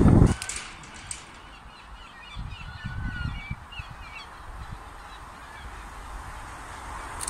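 Loud train noise cuts off just at the start, leaving a quiet background with birds chirping. Near the end, the sound of an approaching pair of Class 37 diesel locomotives begins to rise.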